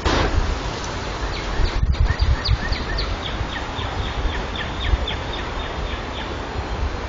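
Wind buffeting the trail camera's microphone in a constant low rumble, while a songbird sings a long series of quick down-slurred notes, about four a second, for around five seconds.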